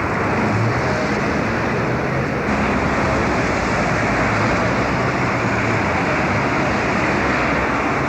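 Steady city traffic noise: a constant wash of passing vehicles with a low engine hum underneath.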